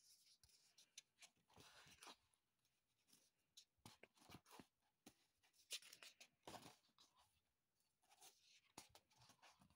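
Faint paper rustling and flicking as sketchbook pages are handled and turned, in a string of short irregular rustles and clicks.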